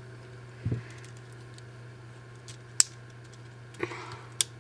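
Small plastic clicks from a Sony Ericsson W580i's LCD screen and casing parts being pressed and snapped into place: a soft knock about a second in, a sharp click about three seconds in and another near the end, over a steady low hum.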